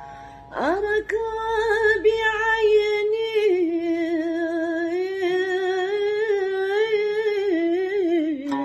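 A woman's unaccompanied, wordless vocal line from an Andalusian istikhbar in the Raml el Maya mode. The voice glides up into it about half a second in, then holds long notes with vibrato and small ornaments, settling onto a lower note near the end.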